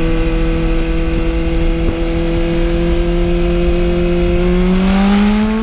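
A loud, steady machine hum with a clear pitch that rises slightly near the end and then cuts off abruptly.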